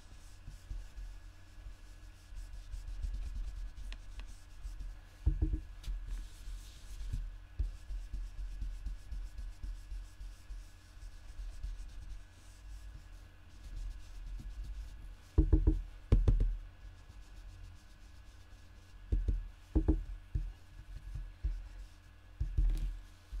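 Blending brush rubbing ink onto cardstock in small circles: a soft, steady scratchy brushing. A few dull knocks come in between, the loudest pair about two-thirds of the way through.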